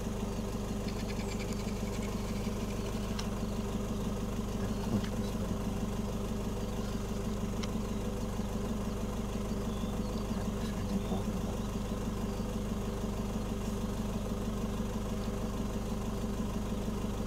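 Car engine idling steadily, heard from inside the cabin as an even low hum.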